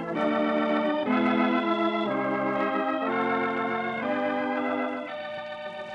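Organ music bridge between scenes: a run of held chords, each lasting about a second, softening near the end.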